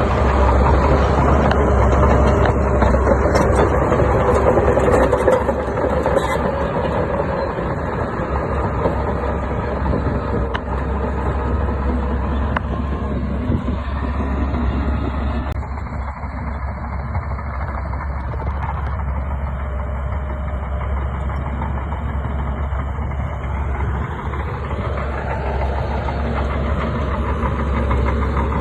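Bulldozer's diesel engine running steadily under load. It is louder for the first few seconds, then eases off, and the engine note climbs briefly about 24 seconds in.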